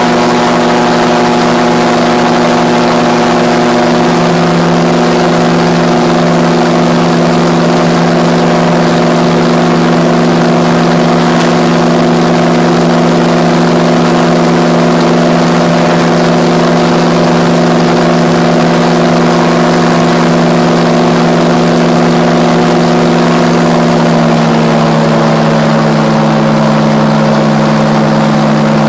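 RAF 2000 GTX SE gyroplane's engine and pusher propeller running steadily in flight, heard from inside the cockpit. The pitch drops slightly near the end.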